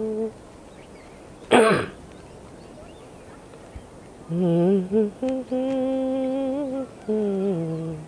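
A person humming a slow tune in long held notes that step up and down, pausing for a couple of seconds in the middle. One short, loud burst comes about a second and a half in.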